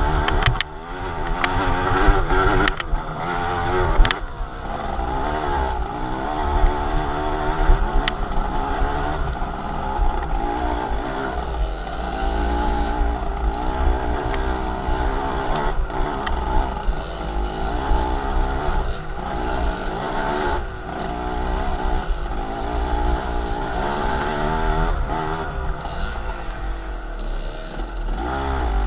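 Vehicle engine running while driving, its pitch rising and falling again and again, over a steady low rumble.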